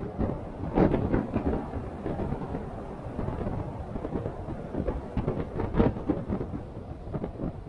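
Off-road vehicle driving over a rough, rocky track: a low rumble broken by repeated knocks and crunches of tyres on stones and jolts through the suspension and body. The hardest knocks come about a second in and near six seconds in.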